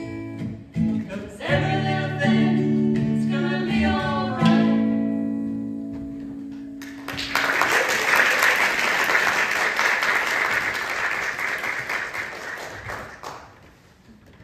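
A song with singing and guitar ends on a long held note, then audience applause breaks out about seven seconds in and fades away near the end.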